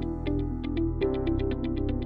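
Background electronic music: a fast, even ticking beat over a low bass line and sustained synth chords, with the bass changing about a second in.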